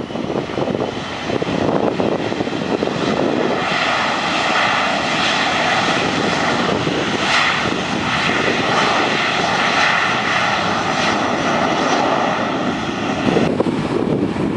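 Boeing 737-400's CFM56 jet engines running at high power, a loud steady rush with a high whine joining about four seconds in. The sound changes abruptly shortly before the end.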